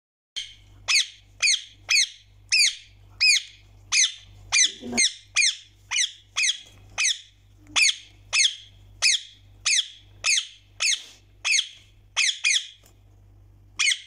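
Indian ringneck parakeet calling over and over: short, shrill calls, each falling sharply in pitch, about two a second, with a short pause near the end before one last call.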